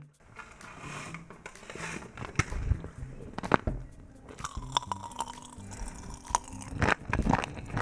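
Knister Gum popping candy crackling and popping in the mouth as it is chewed: many small irregular clicks and crunches.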